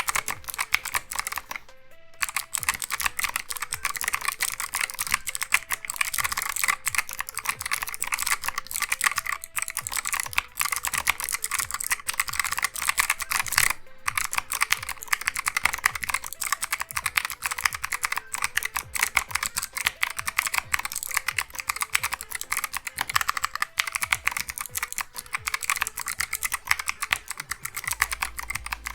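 Fast typing on a mechanical keyboard with Kailh Box White clicky switches: a dense, continuous run of sharp clicks and clacks, crazy loud, with a brief pause about two seconds in.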